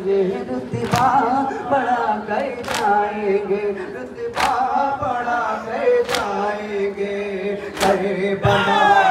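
Men chanting a nauha, a Muharram lament, in chorus, with the crowd beating their chests in unison (matam): five sharp open-hand slaps about 1.7 s apart keep the beat under the voices.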